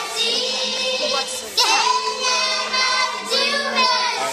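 Children singing a song in long held notes, with a gliding rise into a new note about a second and a half in.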